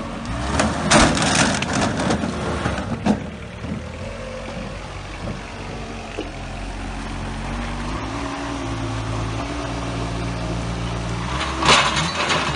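A stack of long pipes sliding off a forklift's raised forks and clattering to the ground, with the forklift's engine running on afterwards, rising a little in pitch. Another burst of clatter comes near the end.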